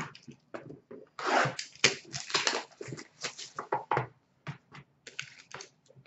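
Hands handling and opening a cardboard box of hockey cards, with irregular rustling, scraping and crinkling of card stock and packaging.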